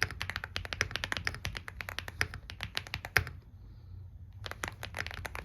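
Typing on a WOB Rainy75 mechanical keyboard with Gateron Quinn tactile switches and PBT keycaps: fast, dense keystroke clacks, breaking off for about a second past the middle and then resuming.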